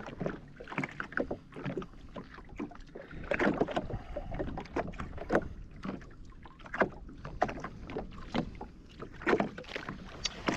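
Small waves splashing and slapping irregularly against the hull of a Sea-Doo Fish Pro jet ski sitting on open sea.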